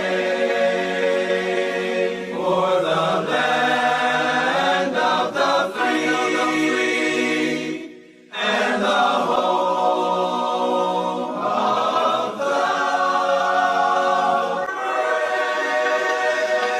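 Choral music of held, slowly changing chords, with a brief break about eight seconds in.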